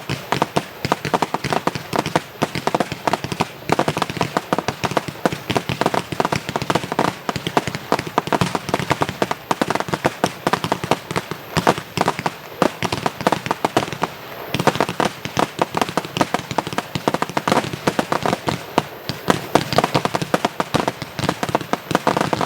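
Fireworks display of mostly small shells going off in a dense, rapid barrage: many sharp bangs and crackles a second, with no let-up.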